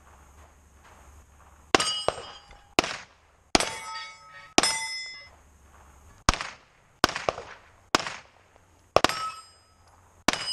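About ten pistol shots fired at an uneven pace, several followed by the ringing clang of a steel plate being hit.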